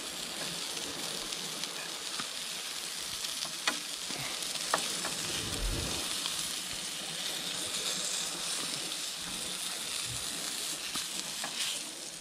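Floured leatherjacket and flathead fillets sizzling steadily in hot oil in a frying pan, with a few light clicks as metal tongs turn the fish against the pan.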